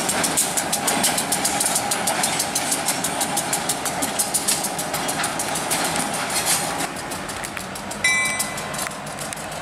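Diesel switcher locomotive running slowly past, its wheels making rapid clicking over the rails along with the steady engine sound. About eight seconds in, a short horn blast of several steady notes sounds for under a second.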